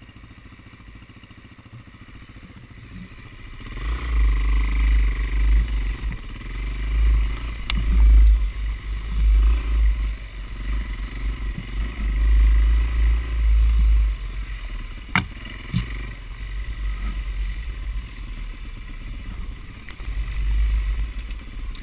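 Trail motorcycle running as it rides a rough singletrack, with a loud, uneven low rumble that starts about four seconds in after a quieter stretch. A single sharp knock comes about two-thirds of the way through.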